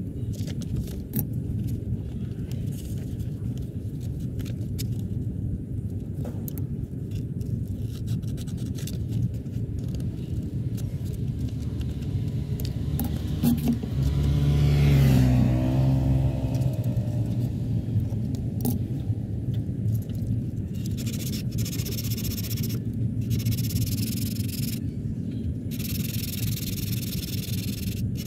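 Steady low rumble of road traffic, with a car passing close by about halfway through. In the last third, a rough scraping in strokes with short breaks between them.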